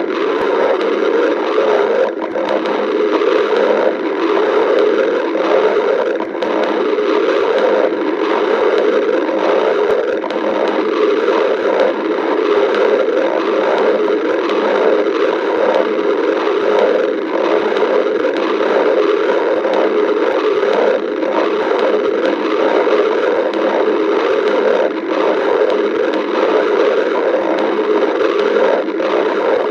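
Stomach growling: a loud, continuous rumble that churns unevenly without pause.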